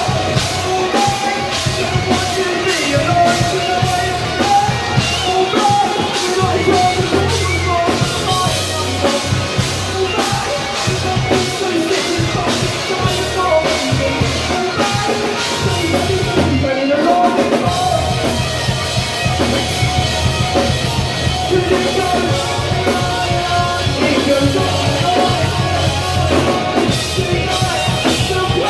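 Live rock band playing loud: drum kit, electric bass and guitar, with a vocalist singing into a microphone through the PA.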